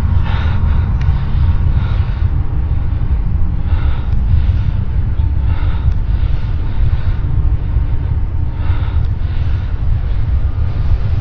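Deep, steady low rumble of the unexplained 'strange sky sound', the kind of eerie noise people have recorded from the sky, with faint hissing swells above it every second or two.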